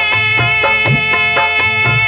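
Instrumental passage of a qawwali song: steady held notes over a regular hand-drum beat, about two strikes a second, with no singing.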